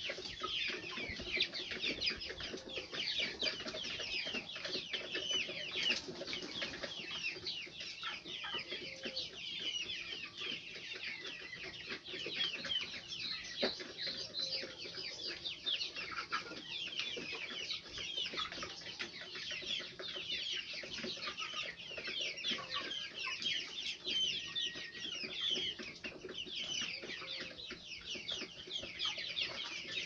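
A flock of young chickens cheeping without pause, many short high falling peeps overlapping one another.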